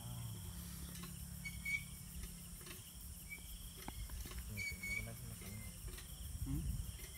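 Night insects, crickets, chirping in short repeated calls over a low background hum.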